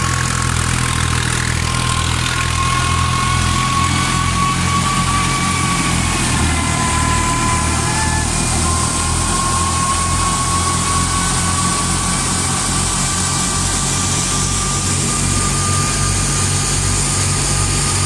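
Tractor-driven wheat thresher running at work: the tractor engine pulses in a steady low chug, with a steady whine from the spinning thresher over it.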